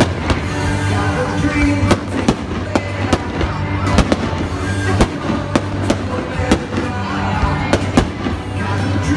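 Aerial fireworks bursting in more than a dozen sharp, irregularly spaced bangs over music with a heavy steady bass.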